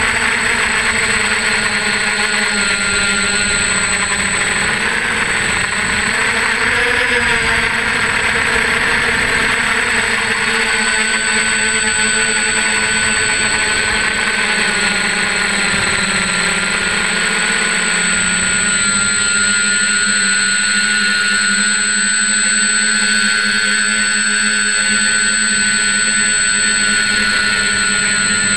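Hexacopter's six electric motors and propellers running steadily in flight, heard up close from the frame: a whine of several pitches over a rushing noise. The pitch shifts slightly a couple of times as the throttle changes.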